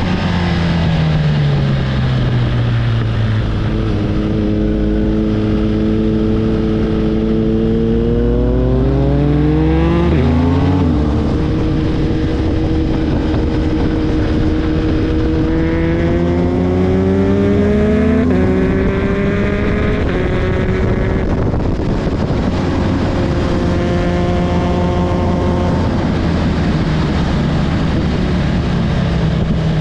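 Car engine under hard driving: its pitch falls, climbs steadily to about ten seconds in, drops sharply as it shifts gear, climbs again, then falls away and holds steady near the end.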